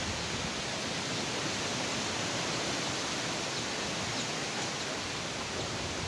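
Strong typhoon wind rushing steadily through tree foliage, a continuous rustling hiss.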